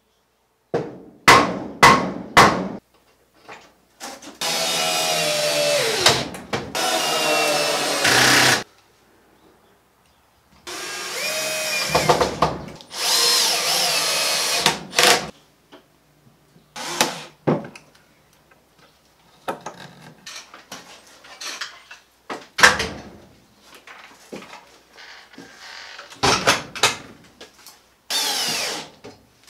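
Bosch cordless drill/driver driving screws into timber overhead, in several runs of a second or two that stop abruptly. Sharp hammer knocks come near the start, and lighter clicks and knocks come between the drill runs.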